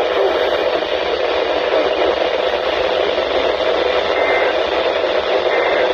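Radio static: a steady, loud hiss from a radio receiver on weak reception, with no clear speech through it.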